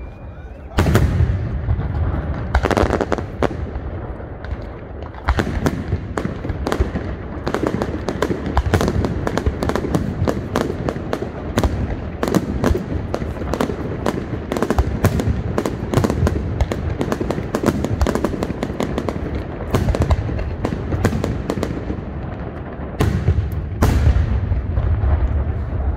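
Fireworks display: aerial shells bursting with deep booms about a second in and again near the end, with dense, rapid crackling of many small bursts from about five seconds in.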